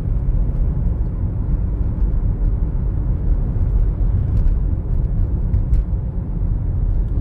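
Steady low rumble of a car driving on a road, heard inside the cabin: tyre and road noise mixed with the engine, with a couple of faint clicks about halfway through.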